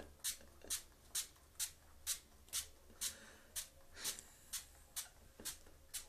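Hand-pumped trigger spray bottle squirting water in short hisses, about two sprays a second in a steady rhythm.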